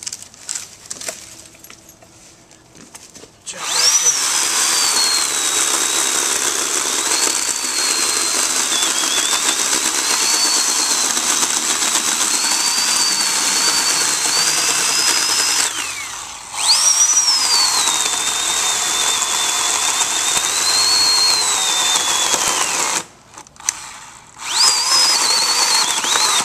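Oregon PowerNow 40-volt battery electric chainsaw cutting through a log. A few seconds in, the motor whines up to speed and its high pitch sags and wavers as the chain works through the wood. It lets off briefly partway through, spins back up and cuts again, stops, then starts once more near the end.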